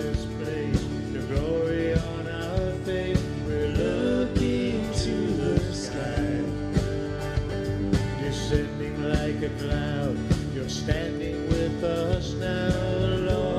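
Live praise band playing a contemporary worship song: drum kit, electric bass, electric and acoustic guitars, with a steady drum beat.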